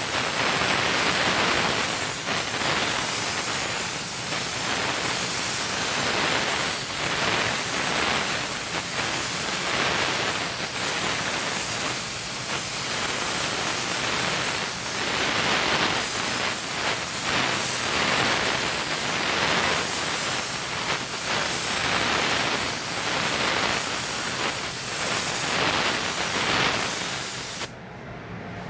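Gravity-feed compressed-air spray gun spraying automotive paint onto a car panel: a loud, steady hiss of atomising air that swells slightly with each pass and cuts off about a second before the end, leaving a quieter background noise.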